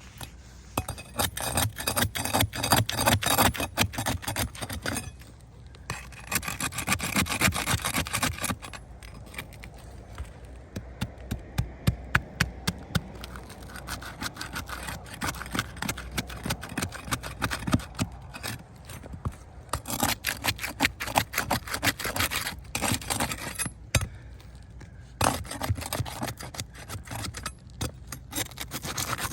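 Asphalt roof shingles being pried apart and scraped with a hand tool to break their sealed bond and get at the nails: continuous scraping and rasping with many sharp clicks.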